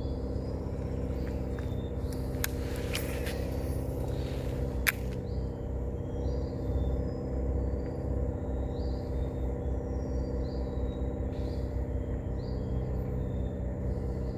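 Short high bird chirps repeating about once a second over a steady low hum, with a few sharp clicks in the first five seconds.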